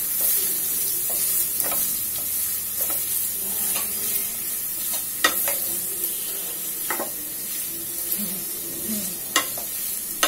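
Diced potato, carrot and cauliflower sizzling in ghee and oil in a steel karahi, stirred with a wooden spatula that scrapes through the vegetables. A few sharp knocks of the spatula against the pan come in the second half.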